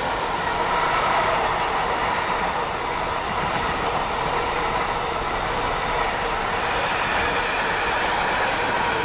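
An intermodal container freight train's wagons rolling past at speed: a steady rushing rumble of wheels on rail, with a few faint steady ringing tones over it.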